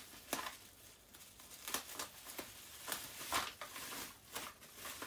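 Wrapping and packaging being rustled and crinkled by hand while items are unpacked, in a string of short, irregular crackles.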